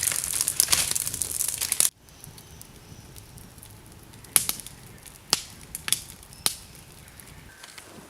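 Dense crunching and crinkling of dry material that cuts off abruptly about two seconds in, followed by a few sharp, separate clicks or snaps.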